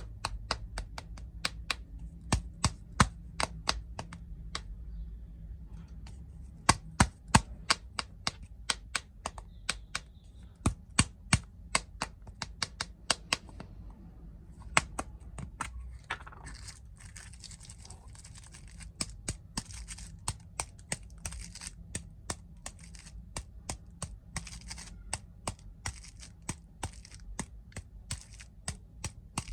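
Snack packaging being handled for ASMR: a run of sharp taps and clicks, often several a second, with crinkling plastic wrapper joining in from about halfway.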